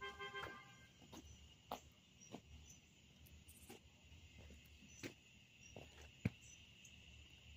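Faint steady chorus of insects, a continuous high trill. There is a short steady pitched tone in the first second, and scattered light clicks, the sharpest a little after six seconds in.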